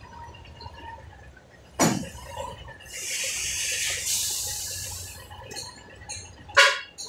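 A sharp knock, then about two seconds of hissing compressed air from a truck's air brake system, then another knock near the end.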